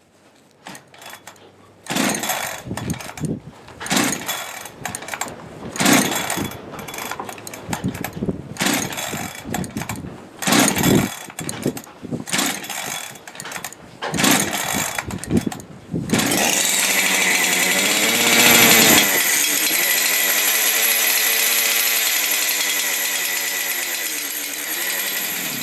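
Two-stroke chainsaw pull-started cold, with a run of short, irregular bursts of cranking and sputtering before it catches about 16 seconds in. It revs briefly, then idles with a wavering, uneven pitch.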